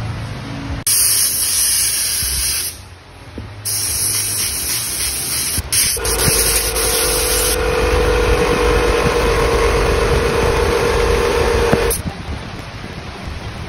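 Compressed-air spray gun with a canister cup hissing in several spray bursts: a short one early, a break, then a long spray ending about 12 seconds in, with a steady hum under its later part.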